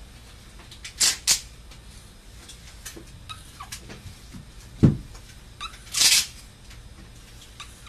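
Marker pen writing on a sheet in a few short scratchy strokes, two quick ones about a second in and a longer one about six seconds in, with a single dull knock a little before that.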